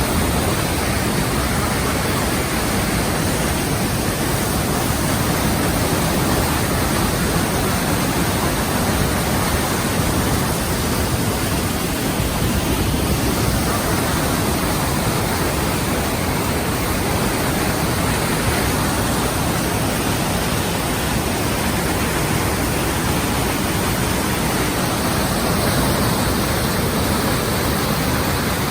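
Steady, even rushing noise at a constant level, with no distinct events.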